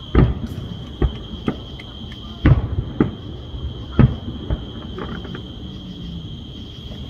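Distant aerial firework shells bursting: about seven sharp booms at uneven intervals over the first four and a half seconds, then a lull. A steady high-pitched chirring of crickets runs underneath.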